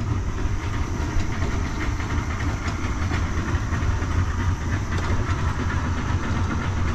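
Small wooden river boat's outboard motor running steadily at low revs, a continuous low hum.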